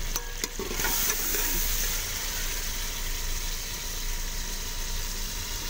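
Chicken and potato curry sizzling steadily in a pot on the stove, with a few light clicks in the first half second.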